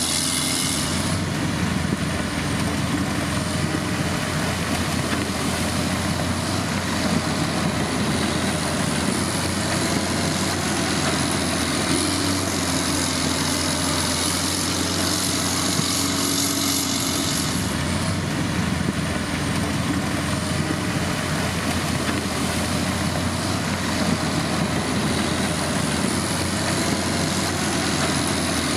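Heavy diesel engine of road-building machinery running steadily, with a thin high whine wavering over it.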